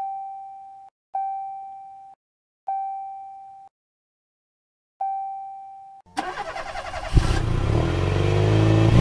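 Four ding sound effects, each a single ringing tone that fades over about a second. About six seconds in, a motorcycle engine sound effect starts up, catches with a sudden louder jolt a second later, and revs up and down.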